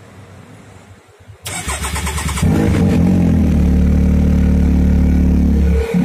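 Can-Am Maverick X3's turbocharged three-cylinder engine is cranked by its starter for about a second. It catches about two and a half seconds in and settles into a steady idle.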